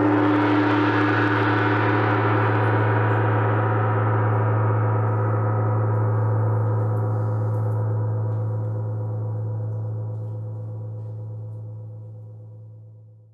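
A single gong stroke ringing out, with a deep main tone and many overtones, slowly fading away until it dies out near the end.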